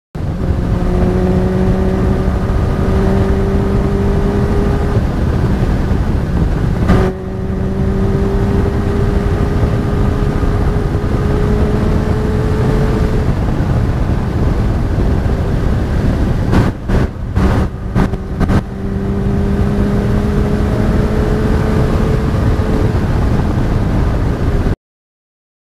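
Honda CBR 600 F4i's inline-four engine running at steady cruising revs while riding, its note slowly climbing in pitch, under heavy wind rumble on the camera microphone. There is a brief break in the sound about seven seconds in and a few short dips around seventeen to eighteen seconds, and the sound cuts off suddenly near the end.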